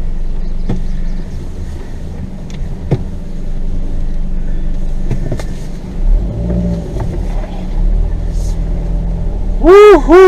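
Car driving slowly over a rough, rutted dirt trail: a steady low engine and road rumble with scattered knocks and clicks from the tyres and underside. Near the end, loud wavering calls, like a voice, break in.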